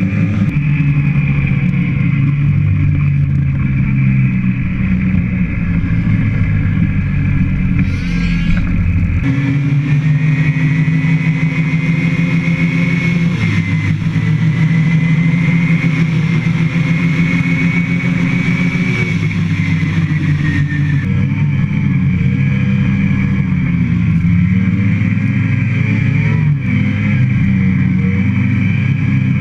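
Motor vehicle engine running steadily, with a higher whine that slowly rises and falls in pitch; the sound changes abruptly twice, about a third and two thirds of the way through.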